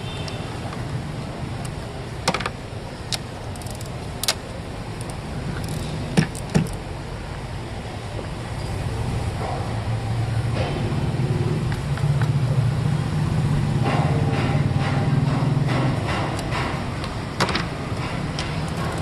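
Hyundai i20 petrol engine running at idle, louder for several seconds in the middle, with a few sharp clicks and knocks over it. The engine has a misfire on cylinder 4, which the mechanic traces to a failing ignition coil.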